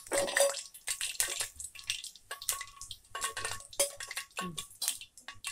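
Hot oil in a kadai sizzling with irregular crackles and pops as fully fried chicken 65 pieces are lifted out with a metal ladle, which clinks and rings against the pan several times.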